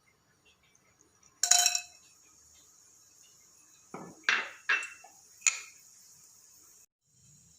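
Kitchen utensils clattering against pots and dishes: one loud clatter, then a few sharp knocks and clinks a couple of seconds later, over a steady high-pitched hiss.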